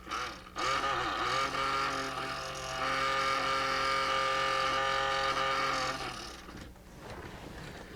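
Small DC electric motor of an animated display's gearbox running on a 4-volt bench supply: it starts about half a second in, settles into a steady whine and stops about six seconds in. The motor works.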